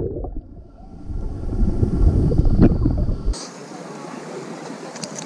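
Muffled low rumble of water moving around a camera held underwater. About three seconds in it cuts abruptly to the steady hiss of open sea water and wind on the microphone above the surface.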